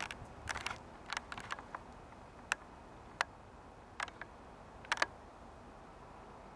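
Irregular sharp clicks and ticks, some in quick clusters, that stop about five seconds in, over a faint steady hiss.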